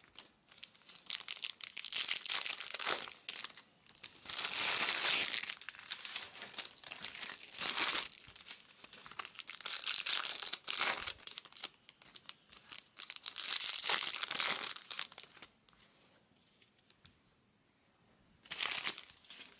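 Foil trading-card pack wrappers crinkling and tearing in irregular bursts as packs are handled and opened by hand, with a quieter lull near the end before the crinkling picks up again.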